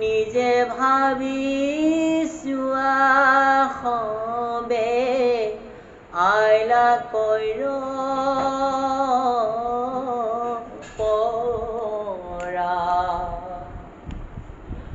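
A solo voice singing verses in the melodic Assamese Bhagavat recitation style, with long held, wavering notes and short pauses between phrases.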